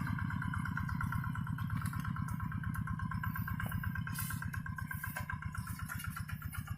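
Single-cylinder diesel engine of a Quick two-wheel hand tractor running steadily with an even, rapid chugging while it plows a field.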